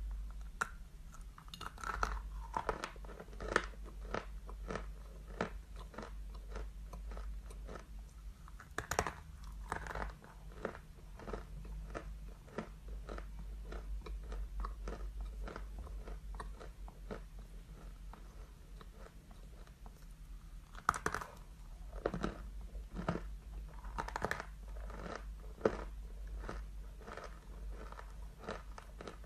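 A person biting and chewing pressed edible chalk, starting with a Glinomel «Paris» stick: a long run of crisp crunches, with a few louder snapping bites. A steady low hum runs underneath.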